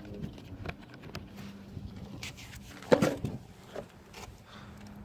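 Small clicks and handling noise as the fog light housing's screws are started into place, with one louder, brief knock-like sound about three seconds in.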